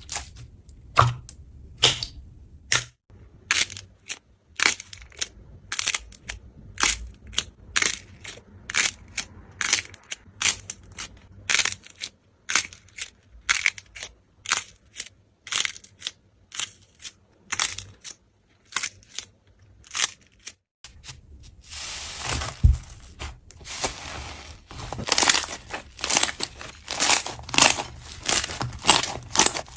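Slime being squeezed and pressed by hand, giving a string of sharp clicks and pops about two a second. A little past two-thirds of the way through, it turns to a denser, continuous crackle.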